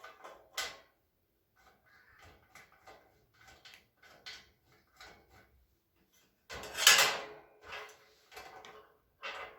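Light clicks and knocks of metal shelving parts being handled and screwed together, with a louder metallic clank about seven seconds in.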